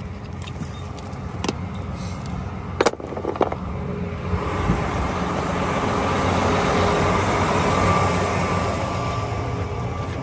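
An engine runs steadily under a few metal clinks of chain and hooks and a sharp knock about three seconds in. From about four seconds in, a louder steady tractor engine noise with a faint whine takes over.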